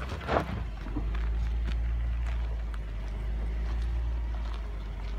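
Land Rover Discovery engine running at low revs as the SUV crawls over rocks, with tyres crunching on gravel and small stones clicking. A brief, loud burst of noise about half a second in.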